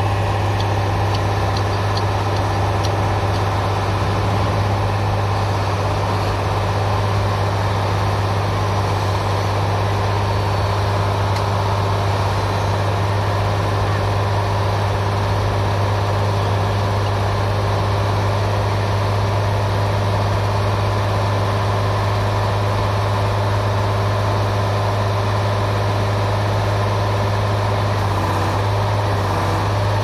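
Diesel engine of a crawler-mounted railway track-laying machine running steadily, a constant low hum with no change in speed.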